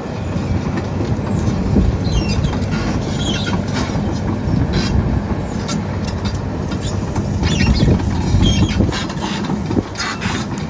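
XCMG 210 excavator's Cummins diesel running steadily under load, with intermittent metallic clanks and short squeals from the working machine.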